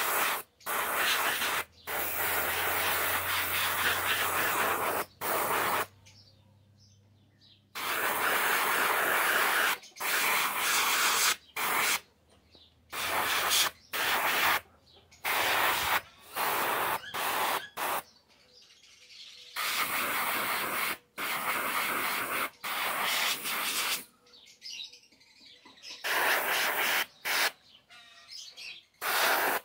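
Paint spray hissing in on-off bursts, most lasting one to several seconds, with short pauses between. A faint low hum runs under it through the first half.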